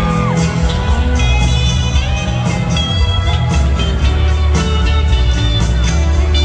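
Country-rock band playing live, heard from the audience: acoustic guitar strumming under electric guitar lines, with bass and drums.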